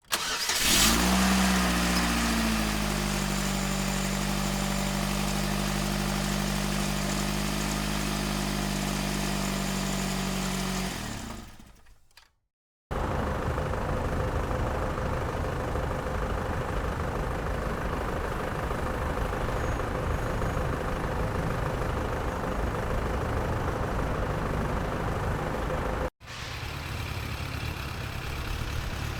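A run of vehicle engine sound effects. First an engine starts with a brief rev that drops back to a steady idle, then fades out after about eleven seconds. After a short silence, a rougher, steady engine rumble runs, cut off at about twenty-six seconds by another, slightly quieter engine rumble.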